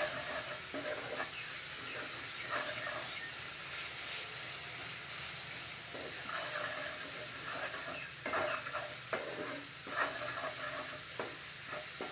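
Onion and tomato masala sizzling in a nonstick frying pan while a spatula stirs and scrapes it: a steady hiss with irregular scraping strokes.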